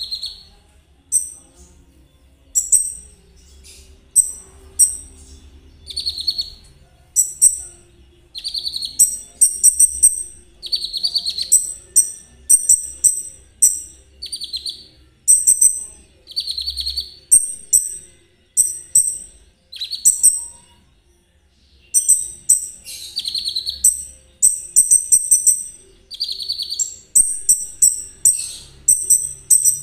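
A konin songbird of the trotol type singing in short, rapid phrases about once a second, alternating a rattly buzz with quick, very high chips, with a brief pause about two-thirds of the way through.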